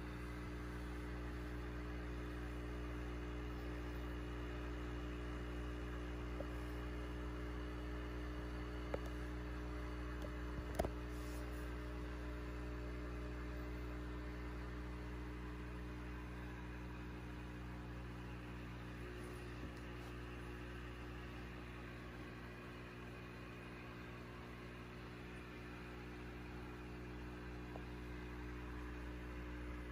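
Steady hum of a running aquarium air pump feeding the bubble stones, with a couple of short clicks about ten seconds in.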